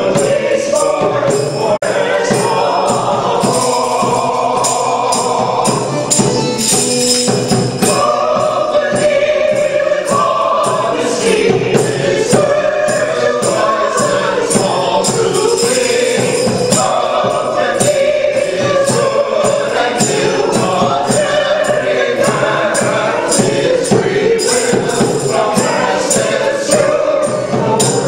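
A small mixed group of singers sings together, with held notes over a steady percussive beat.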